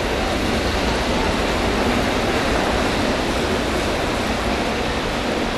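Steady, even rushing noise of an indoor velodrome during a track race, with no single sound standing out.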